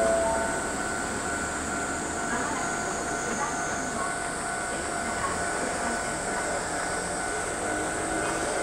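Electric trains at a station platform: a standing Kintetsu 9820 series train's steady hum with thin, even whining tones, while a Hanshin 1000 series train comes in on the adjacent track. A low tone rises slightly near the end.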